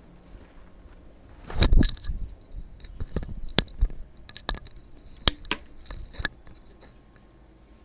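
A series of clicks, knocks and light rattles, as of small hard objects being handled. The loudest comes as a short cluster about a second and a half in, followed by a dozen or so sharper single clicks over the next few seconds.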